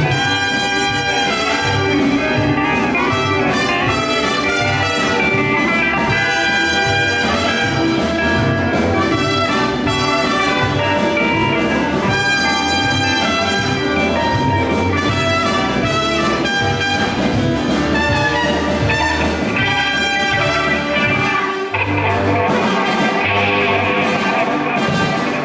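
Live band playing an instrumental passage, a trumpet carrying the melody over electric guitars, bass and drums. Near the end the playing drops for a moment and moves into a new section.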